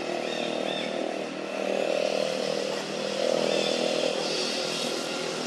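A small engine running steadily, swelling louder twice.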